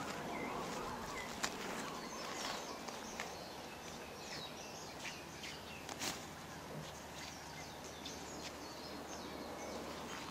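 Birds chirping here and there over a steady outdoor background hiss, with a few sharp clicks and soft rustles as a goat's hide is worked off its hind leg with a skinning knife; the sharpest click comes about six seconds in.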